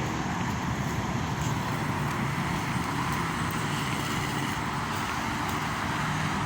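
Steady road traffic noise: an even low rumble with a hiss over it.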